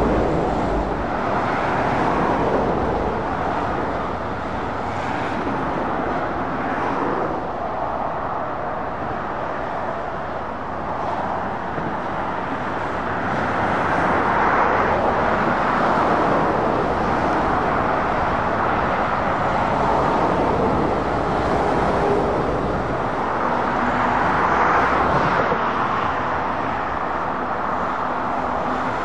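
Road traffic: articulated lorries and cars passing, their tyre noise and diesel engines swelling and fading several times as each goes by.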